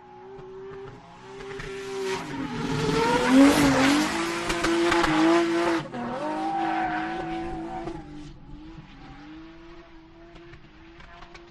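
A race car drifting. The engine holds a steady note, then swells into a loud stretch of tyre squeal and skidding about two seconds in. This cuts back suddenly around six seconds in, leaving the engine note to fade away.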